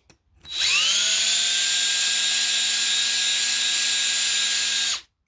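Power drill spinning up to speed and running steadily for about four seconds, then stopping. It is cleaning out the pin hole through the steel pedal shaft.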